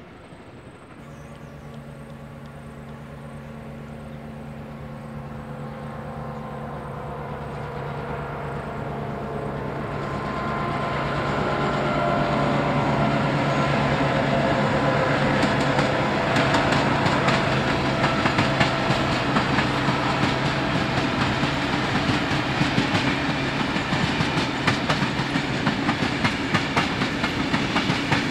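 NSW 42 class diesel locomotive 4201's EMD two-stroke engine drones steadily as it approaches, growing louder over the first dozen seconds. The carriages' wheels then click over the rail joints in a steady clickety-clack as the train passes.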